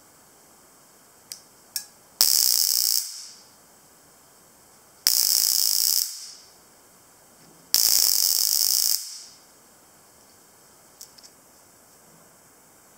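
S08 mini stun gun firing its electrodes: three loud, harsh, high crackling zaps of about a second each, a couple of seconds apart, with two faint clicks just before the first.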